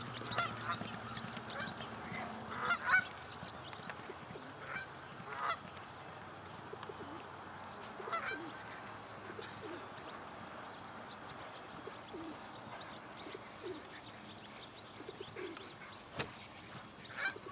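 Geese honking in short scattered calls, most of them in the first few seconds and a couple more near the end.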